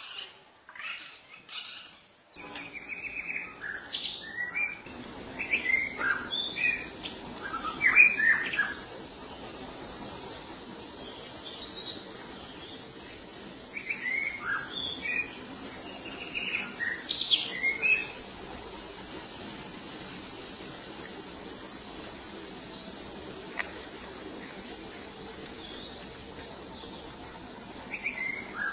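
White-rumped shama singing in short clusters of whistled notes, most of them in the first two-thirds, over a steady high drone of insects.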